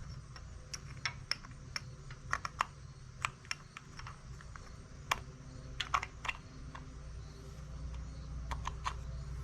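Small sharp metallic clicks and taps at an irregular pace as a valve lifter bucket is handled and set into its bore in a KA24DE cylinder head, over a steady low hum.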